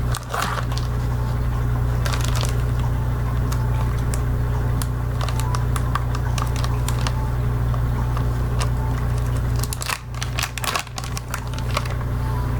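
Soft-plastic bait bag being handled and opened, with scattered crinkles and small clicks and a denser burst of rustling near the end, over a steady low hum.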